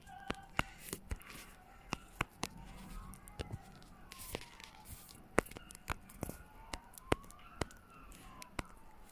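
Phone touch-keyboard key-press clicks, sharp and irregular as a message is typed. Underneath, a faint siren wails slowly up and down.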